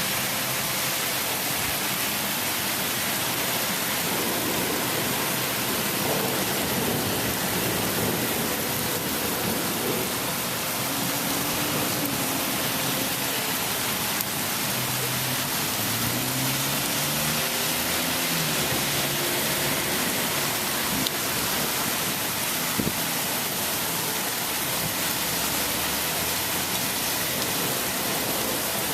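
Steady rain falling during a thunderstorm, an even hiss at a constant level. A faint, wavering low tone comes and goes in the middle, and there are a few light taps.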